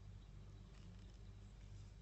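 Near silence: a faint steady low hum with a few soft, faint ticks of a wire whisk beating cake batter in a glass bowl.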